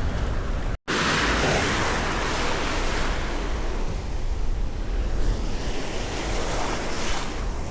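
Gulf surf washing onto the beach, a steady rush of waves with wind on the microphone. The sound drops out for an instant just before a second in.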